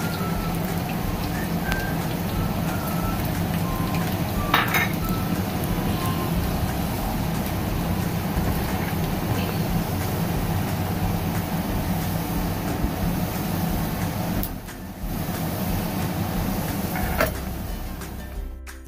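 Hot oil sizzling steadily as garlic, whole dried red chillies and cumin seeds fry in it for a daal tempering, with a sharp pop about four and a half seconds in and a steady low hum underneath.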